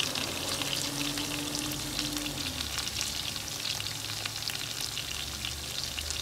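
Sweet potato slices sizzling steadily in hot oil in a frying pan, with a dense run of small crackles.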